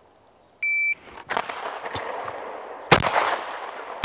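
A shot timer's electronic start beep lasts about a third of a second, about half a second in. Then a CZ P-01 9 mm pistol fires several shots at slow, uneven intervals, about a second apart. The shot about three seconds in is the loudest.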